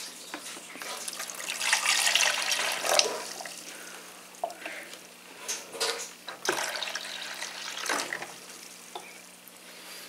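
Liquid being poured into a drip coffee maker's water reservoir, splashing most heavily in the first few seconds and then trickling in weaker spells, with a few light knocks. It is a fill for a vinegar descaling run.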